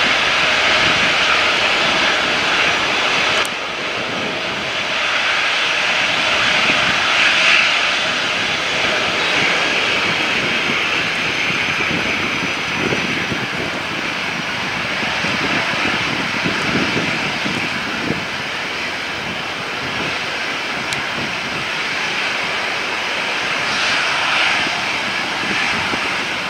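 Boeing 737-800's CFM56-7B turbofan engines running at taxi power, a steady high whine and rush as the airliner taxis closer, with irregular low rumbles underneath.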